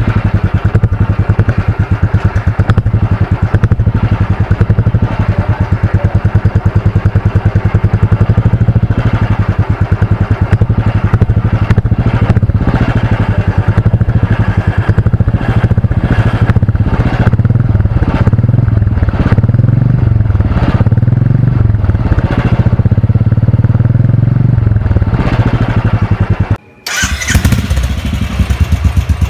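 Royal Enfield Classic 350's single-cylinder engine idling, its exhaust giving a steady, even thump. The sound cuts out briefly near the end and starts again.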